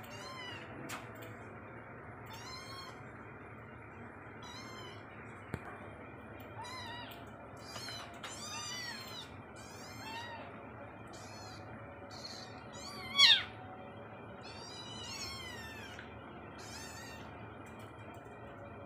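Young kittens mewing over and over in short, high-pitched calls as they crowd their mother cat to nurse, with one much louder cry about thirteen seconds in.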